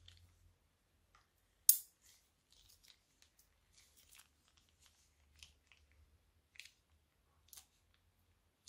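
Plastic piping bag squeezed and pressed into slime, giving scattered soft crackles and clicks, with one sharp snap about two seconds in.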